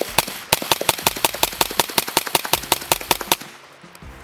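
Suppressed AR-15 pistol in 300 Blackout, with a titanium 30-cal suppressor, fired in a fast string of shots, several a second, that stops about three and a half seconds in. The shooter believes the ammunition is supersonic, so each shot keeps its bullet crack despite the can.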